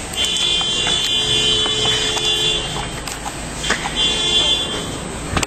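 Two vehicle horn honks, a long one of about two and a half seconds followed by a shorter one of about a second, over a steady low background rumble. A few sharp footsteps on stone steps in between.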